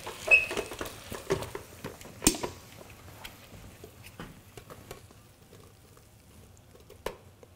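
Cooked peppers and vegetables being scraped with a spoon out of a speckled enamel pot and tipped into a glass blender jar: scattered taps and clinks with one sharp knock about two seconds in and another near the end, growing quieter as it goes.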